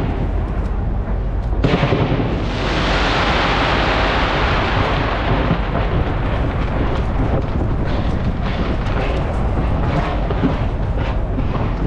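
Large aerial fireworks display bursting close overhead: a continuous rumble of many explosions that swells louder about two seconds in, with sharp bangs going off through the rest.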